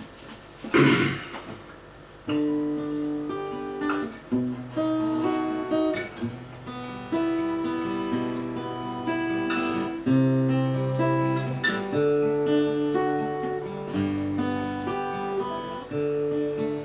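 Acoustic guitar playing a slow instrumental introduction to a song, chords ringing over a changing bass line, starting about two seconds in after a short burst of noise.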